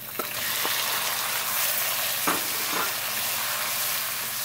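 Chopped tomatoes sizzling in hot ghee and fried onions in a non-stick pan, with a steady frying hiss that sets in as they go in. A spatula stirs them through, with a few faint scrapes.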